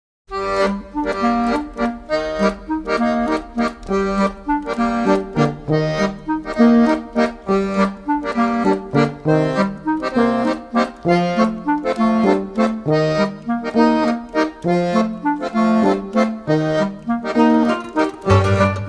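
Background music led by an accordion, playing a tune over a steady beat.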